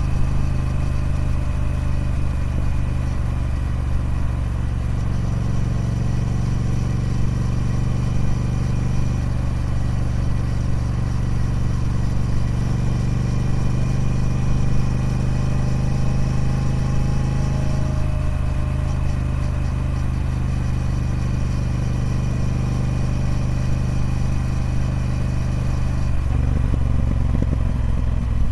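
Triumph Speed Twin 1200's parallel-twin engine through its stock exhaust, running at a steady engine speed. The note shifts about two-thirds of the way through, and changes again, lower and rougher, near the end.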